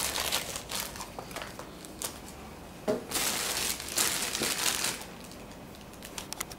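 Clear plastic packaging bags crinkling and rustling as they are handled and lifted out of a cardboard box. The crinkling is heaviest for a couple of seconds in the middle, then fades to faint handling noise.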